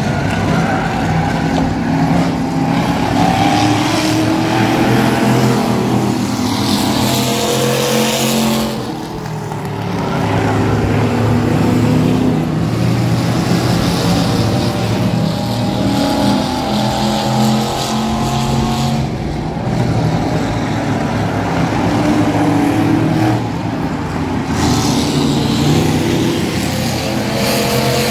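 Race car engines running hard on a short oval, several engines together with their pitch rising and falling through the laps; the sound drops briefly about a third of the way in.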